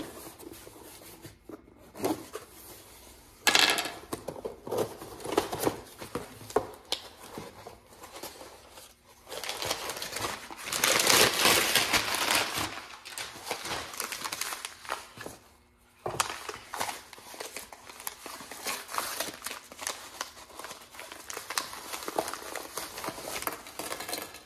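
Packaging crinkling and rustling in irregular handling bursts as a parcel is opened and unpacked, heaviest for a few seconds about ten seconds in.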